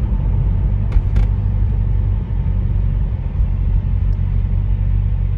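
2009 Chevrolet Corvette C6's 6.2-litre LS3 V8 running while the car is driven, a steady deep rumble heard from inside the cabin. Two light clicks about a second in.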